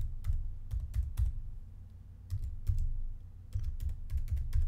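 Computer keyboard being typed on: irregular keystroke clicks, each with a dull thud, in quick runs with a short pause about halfway, as a password is entered.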